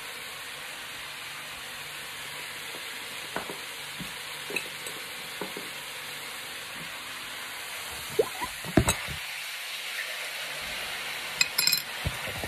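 Beef and aromatics frying in a pan, a steady sizzle, with scattered knocks and clinks of utensils or containers. The knocks are loudest past the middle, and there is a short rattle near the end.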